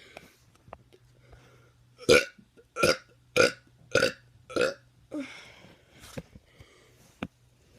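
A teenager burping: a quick run of five short burps, evenly spaced, starting about two seconds in, followed by a softer sixth burp that drops in pitch.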